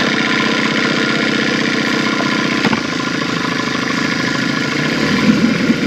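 Boat motor running steadily, with a small knock about two and a half seconds in.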